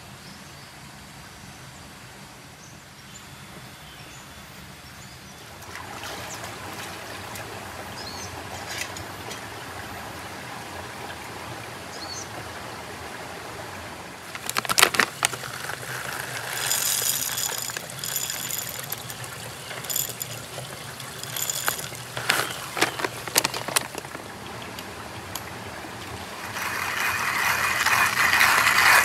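Water trickling over rocks in a stream, with a run of sharp clicks and knocks from gear being handled about halfway through. Near the end a louder rasping noise builds up.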